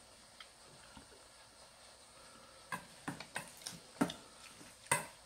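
Chopsticks clinking and scraping against a stainless steel bowl while mixing noodles. It is a run of irregular short clinks that begins about two and a half seconds in, with the two loudest near the end.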